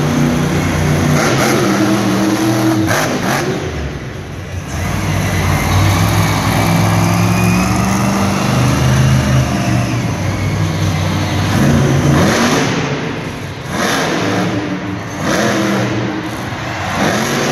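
Grave Digger monster truck's supercharged V8 engine revving hard, its note climbing and falling as the throttle works. It eases off briefly about four seconds in and again around thirteen seconds.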